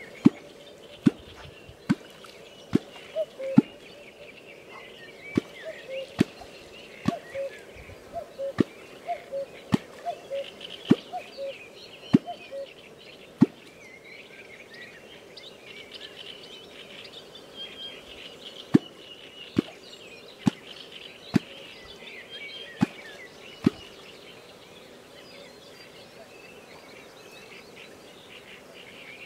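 A kwok, the catfish-calling stick, struck into the water over and over, each stroke a sharp deep plop. There are some two dozen strokes in irregular runs, with a pause of several seconds in the middle, and none after about two-thirds of the way through. Birds chirp steadily in the background.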